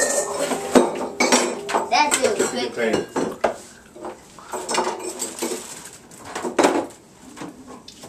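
Stainless steel mixing bowl and stand mixer metal parts clanking and knocking against each other and the counter as they are handled, a string of uneven metallic hits.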